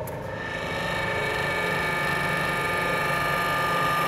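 Golden Power GP68 hydraulic hose crimping machine running under load as its dies close to crimp a 3/4-inch hose fitting. A steady hum with several whining tones grows slightly louder as the crimp goes on.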